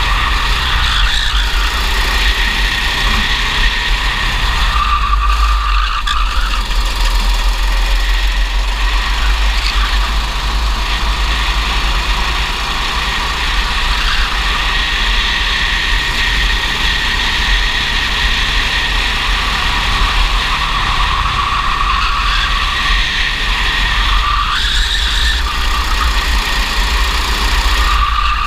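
Racing kart engine running hard at racing speed, heard onboard, its note rising and falling a few times through the corners.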